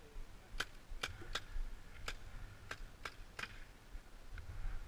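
Paintball markers firing: about seven sharp, separate pops at uneven intervals over the first three and a half seconds, over a low wind rumble on the microphone.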